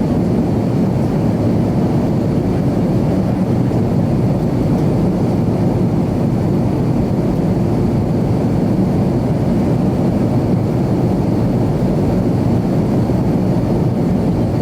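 Steady cabin noise inside an Avro RJ100 airliner: the low rumble of its four Honeywell LF507 turbofans and the airflow, with a faint high whine above it.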